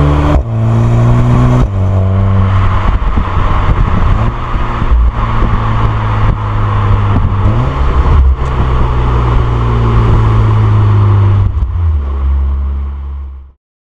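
2015 VW Golf R's 2.0 TSI turbocharged four-cylinder engine and exhaust under way. The revs climb and drop sharply twice in the first two seconds, as the six-speed DSG shifts up. It then runs at fairly steady revs, with a step up in pitch about two-thirds of the way through and a drop near the end, before the sound cuts off abruptly.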